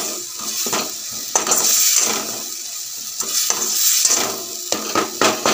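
Thick onion-tomato masala sizzling in a metal kadai as a metal spoon stirs and scrapes through it, with a few clinks of the spoon on the pan about five seconds in. The turmeric, chilli and coriander powders are being fried into the masala until their raw smell goes.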